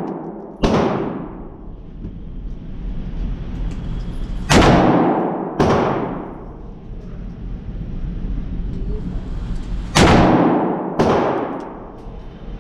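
AR-15-style rifle shots in a concrete indoor range: five sharp cracks, one near the start and then two pairs each about a second apart. Every shot rings off the walls with a long echo that fades over a second or so.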